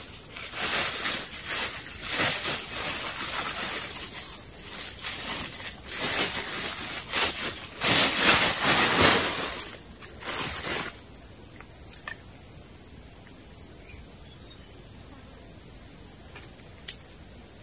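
A steady, high-pitched drone of insects, with irregular rustling from a plastic bag and fishing gear being handled over roughly the first ten seconds.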